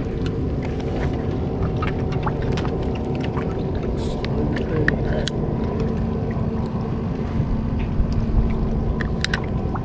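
Steady low rumble with a faint hum on a small boat on the water, with scattered sharp clicks and light water splashes against the boat.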